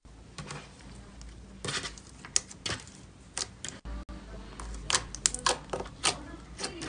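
Glossy slime being pressed and squeezed by hand, giving off irregular sharp clicks and pops as trapped air bursts.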